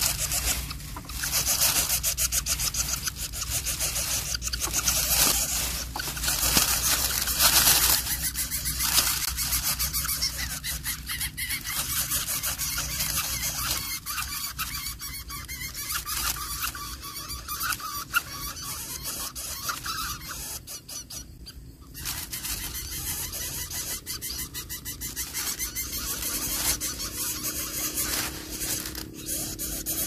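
Dry grass and reed stems rustling and scraping as an adult lesser coucal pushes through them to its nest, over a steady hiss.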